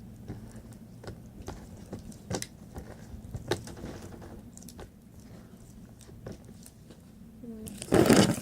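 Sticky glue-and-borax slime being kneaded and pulled by hands, giving irregular wet clicks and squelches over a steady low hum. A loud burst, with some voice in it, comes near the end.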